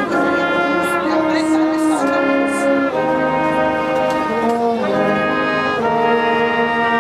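Brass orchestra of trumpets and trombones playing slow, sustained chords that change about once a second.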